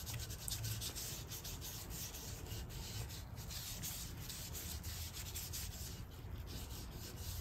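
A cloth rag rubbing stain onto a wooden chisel handle: a quiet, steady, scratchy rubbing made of many quick little strokes.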